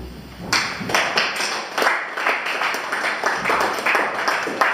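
Small audience clapping, a few pairs of hands, starting about half a second in.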